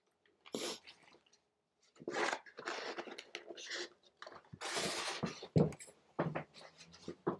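Takeout food containers being handled, closed and put away: an irregular run of rustles and scrapes with a few sharp knocks, starting about two seconds in.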